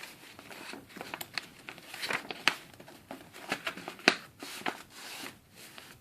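Heavyweight construction paper rustling and crinkling as it is folded and creased by hand: a string of irregular short crackles, the sharpest about two and a half and four seconds in.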